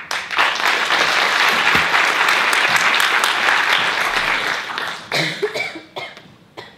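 Theatre audience applauding, starting suddenly, holding steady, then dying away after about five seconds.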